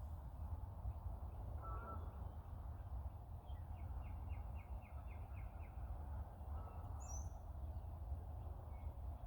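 Wild birds calling outdoors over a steady low rumble, likely wind on the microphone: a short call about two seconds in, a quick run of about nine rapid notes around four seconds, and a brief high call near seven seconds.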